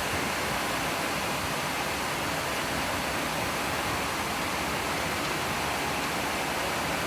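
Steady hiss of heavy rain during a thunderstorm.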